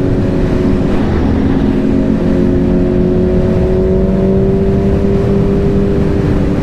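Sport motorcycle engine running at a steady cruise, heard from the rider's own bike, with the hiss of road and wind. Its pitch holds steady and creeps slightly up in the middle.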